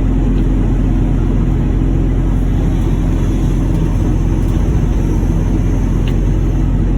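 Heavy machinery running with a steady, loud low rumble and an even engine hum, unchanging throughout.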